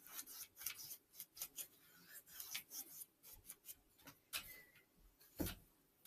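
Faint, irregular brushing and scratching of a large paintbrush's bristles on watercolor paper as the paint is blended, with one louder knock about five and a half seconds in.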